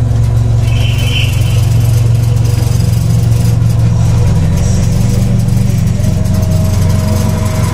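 Miniature train's locomotive running steadily, a constant low drone with faint steady higher tones over it.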